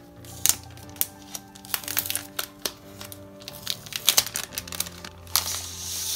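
A clear plastic sleeve crinkling and crackling as it is peeled back and an album is slid out of it. The crackles are sharp and scattered, with a longer, denser rustle near the end as the album comes free. Background music plays under it.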